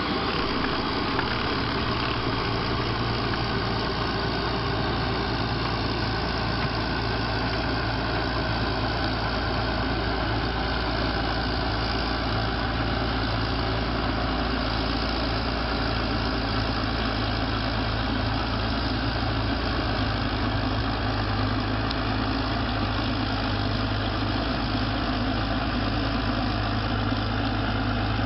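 Engine of a small crawler tractor running steadily under load as it drives across the field working a front-mounted rotary tiller.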